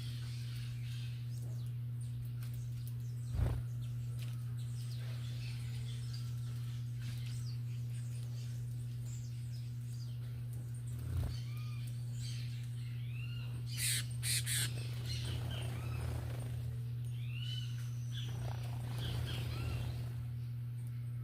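Wild birds chirping at a feeder, short arched calls coming more often in the second half, over a steady low hum. Two dull thumps and a quick cluster of sharp taps about two-thirds through.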